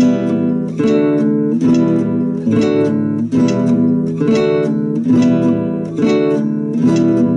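Acoustic guitar strummed in a steady rhythm, about two strums a second, changing back and forth between E minor and D major chords as a chord-change drill.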